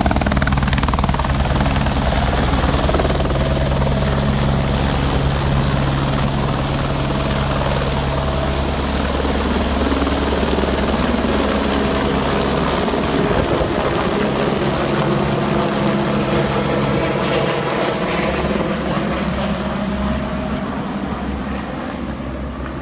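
Eurocopter AS350 AStar helicopter lifting off, with its rotor beating and its turboshaft engine running, then climbing overhead and flying away. The steady low blade pulse shifts about nine seconds in as the helicopter moves away, and the sound fades slightly near the end.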